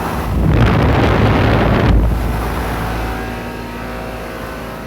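Running air-conditioner condensing unit, really noisy, with a steady multi-tone hum. A loud rush of air swells in shortly after the start and dies away at about two seconds.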